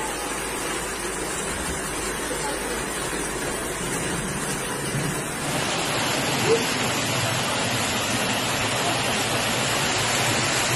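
Floodwater rushing and heavy rain falling: a steady noisy rush of water. About halfway through it turns louder and hissier, as floodwater pours through a fence and over a wall, with a brief tap a second later.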